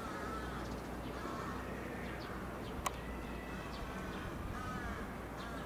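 Crows cawing a few times, with the clearest caws near the end, over a steady low background hum. A single sharp click about three seconds in.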